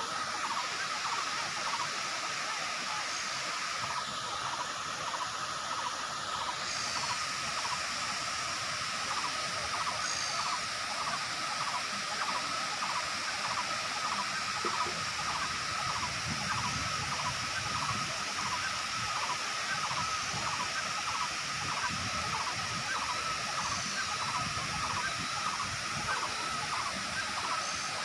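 Water of the Kuang Si waterfall pouring over its limestone tiers in a steady, even rush. A high tone pulsing about twice a second runs over it, with a few faint chirps.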